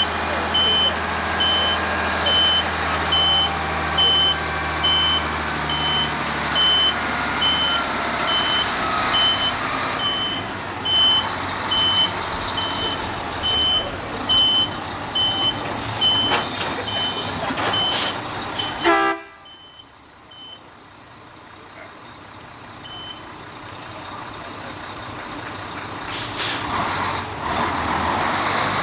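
Concrete mixer truck's diesel engine running while its back-up alarm beeps steadily as it reverses. There are a few short hisses near the end of the reversing, then the sound drops away abruptly and slowly comes back up.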